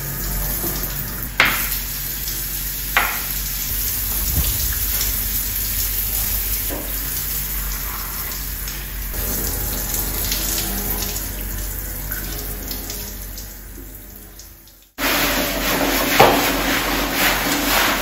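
Shower water spraying and streaming down a glass shower screen as it is rinsed, with a couple of sharp knocks early in the stretch; the water fades out. After a sudden break near the end, a stiff brush scrubs the tiled shower floor.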